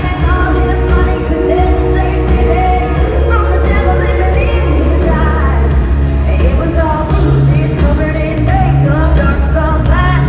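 Live concert sound: a woman singing lead over a full band with a heavy bass line, in an arena.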